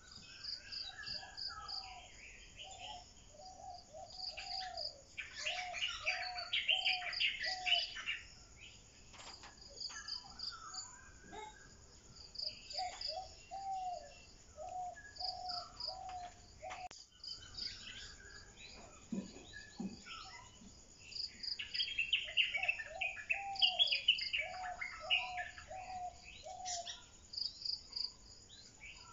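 Birds singing over a steady, pulsing insect chorus of crickets. One bird repeats a phrase of about six low, arched notes three times, and there are two bursts of busy, higher chirping.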